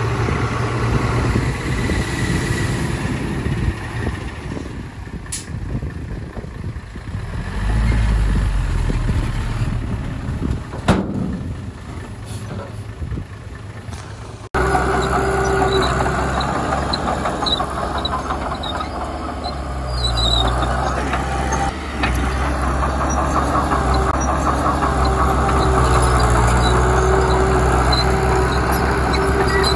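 Heavy diesel earthmoving machinery running and working under load, with the engine sound rising and falling. The sound jumps abruptly to a louder stretch about halfway through.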